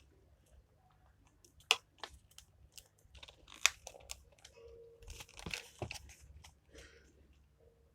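Small parts and packaging handled on a workbench: scattered sharp clicks, the loudest about two seconds apart, and a burst of crinkling rustle near the middle.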